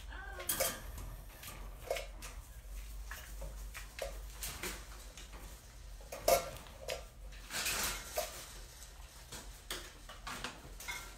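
Dishes and kitchen items being handled: scattered clinks and knocks, the sharpest about six seconds in, with a short rustling stretch around eight seconds in.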